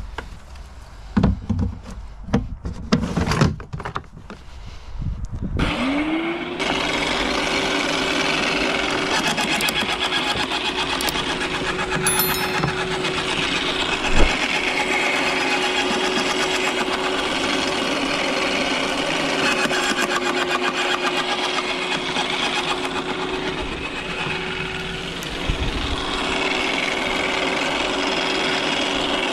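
A few knocks and rustles, then about six seconds in a small electric garden shredder starts, its motor whine rising quickly to a steady pitch. Branches are then fed in, and it grinds and crunches through them steadily.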